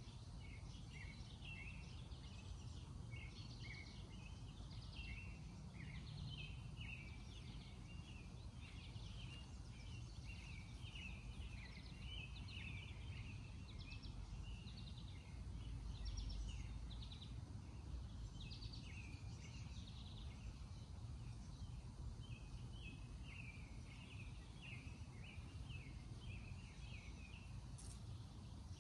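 Outdoor backyard ambience: small birds chirping in short, frequent calls throughout, over a steady low rumble of background noise that swells briefly about halfway through.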